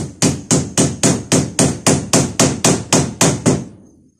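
A small 1 to 2 pound hammer driving a tack, struck in quick even blows about four a second. The blows stop a little before the end, with the tack driven home.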